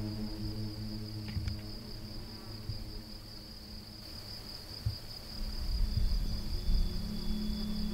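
Steady high-pitched chirring of crickets, with soft background music that fades down and swells again about six seconds in.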